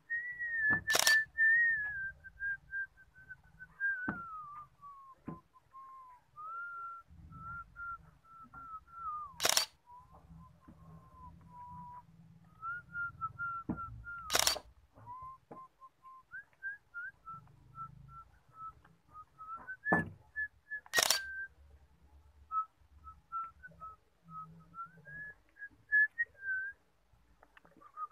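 A person whistling a slow tune, holding notes and gliding between them. Several sharp clicks break in, the loudest about a second in and then roughly 9, 14 and 21 seconds in.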